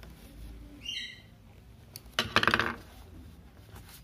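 Plastic case of a phone charger adapter being forced apart at its snap-lock seam: a short squeak about a second in, then a rapid crackling of plastic a little after two seconds as the latch gives.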